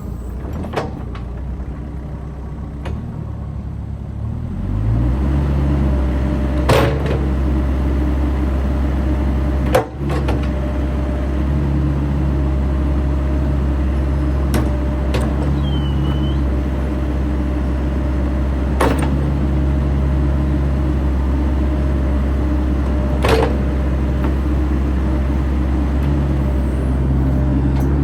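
Bobcat E85 midsize crawler excavator's diesel engine running. It speeds up between about three and five seconds in, then holds steady, with a handful of sharp single clanks spread through it.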